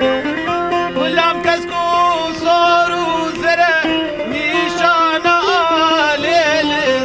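Kurdish folk melody played on a long wooden wind instrument, ornamented with slides and a wavering held note, accompanied by a long-necked bağlama (saz).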